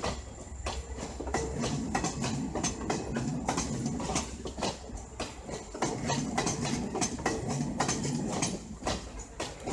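Passenger train rolling past, its wheels clacking over rail joints and points in an uneven run of knocks over a low rumble.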